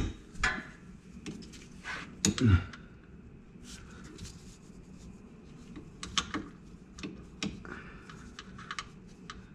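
Scattered light clicks and taps of hand tools and metal parts being handled while the fill plug of a rear differential is fitted, with a few louder knocks near the start and about two and a half seconds in.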